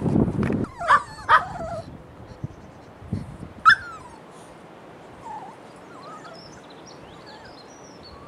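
Puppies yipping and whimpering: two short yelps about a second in, a sharp louder yip near four seconds, then faint, brief whines. A loud low rustle fills the first half second.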